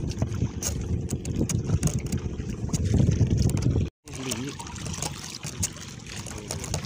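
Small boat engine of an outrigger fishing boat running steadily, cut off abruptly about four seconds in. After that, water splashing and trickling at the hull and net, with a brief voice.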